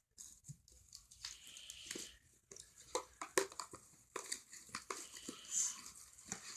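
Fluffy slime of glue, shaving foam and borax being worked and pulled by hand, making many short sticky clicks and crackles.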